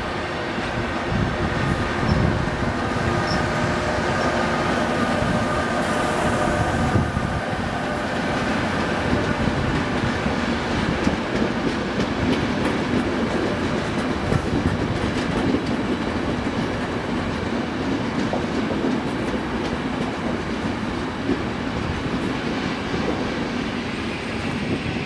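A train running through a railway station, its wheels clicking over the rail joints steadily for the whole time, with a faint steady whine over the first several seconds.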